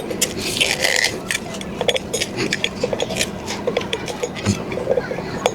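Scraping and rubbing with many short clicks and knocks scattered through it.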